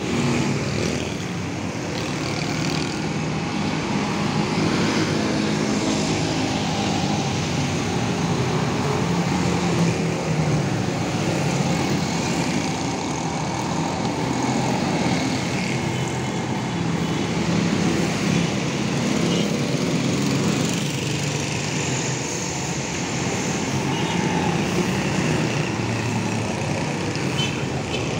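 Street traffic: motorcycle and car engines running and passing over a steady wash of road noise.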